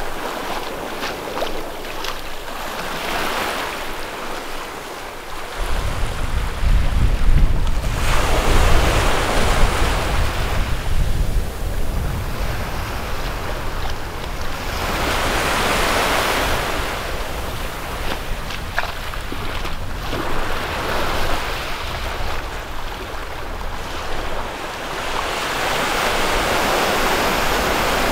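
Sea waves washing up on the beach in repeated surges about every five or six seconds. From about six seconds in, wind buffets the microphone.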